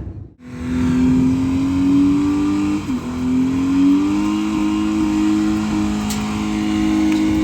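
Honda City car engine running under way, its note rising slowly as it pulls, dipping briefly about three seconds in, then holding steady.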